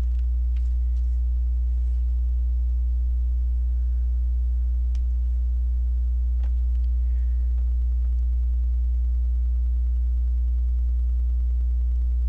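Steady low electrical mains hum on the recording, unchanging throughout, with a few faint small clicks of plastic parts being handled while a sticker is applied to a Lego piece.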